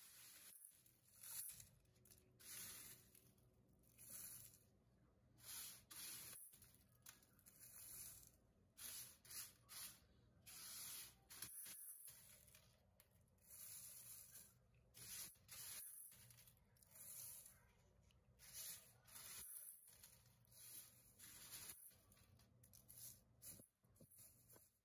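Crisp oven-toasted dried onion flakes rustling and crackling as they are handled and dropped into a plastic food-chopper bowl, in irregular dry bursts every second or so.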